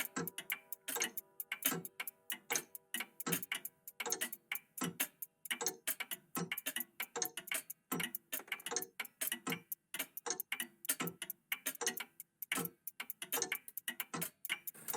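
A vintage cuckoo clock and an old mechanical clock ticking together, their ticks overlapping at slightly different rates so the clicks fall unevenly, several a second. The ringing of a chime dies away over the first two seconds.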